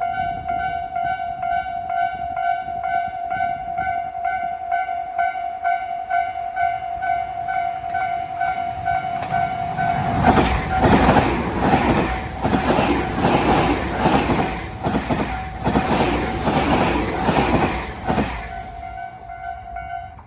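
Japanese railway level-crossing alarm ringing in quick repeated dings, its two bells slightly different in pitch with one a little high. About halfway through, a train passes over the crossing with a loud rhythmic clatter of wheels over the rail joints. The alarm stops just at the end.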